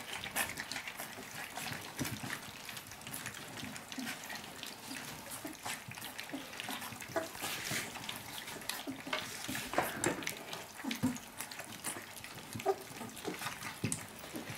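A litter of three-week-old puppies lapping and slurping their first soft food from a shared round feeding dish: a busy, irregular run of wet smacking and licking sounds.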